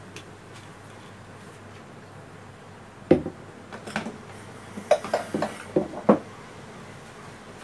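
Mustard seeds starting to pop in hot oil in a steel karahi: about eight sharp pops scattered over three seconds in the middle, over a steady hiss. The seeds are only beginning to splutter, not yet fully crackling.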